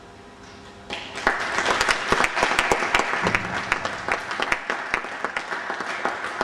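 Audience clapping, starting about a second in and running on as applause for the band.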